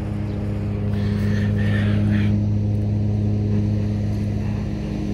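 Small lawn mower engine running steadily at a constant speed, a low even hum.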